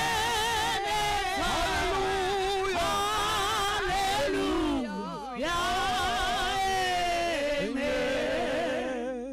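A small vocal group singing in harmony through microphones and a PA, holding long notes with vibrato. The voices break off briefly about five seconds in, then go on and fade out at the very end.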